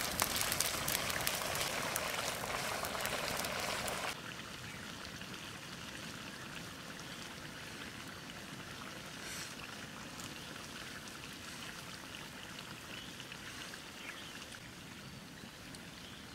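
Mutton curry sizzling and cooking in a kadai: a dense, crackling hiss that drops suddenly to a quieter, steady hiss about four seconds in.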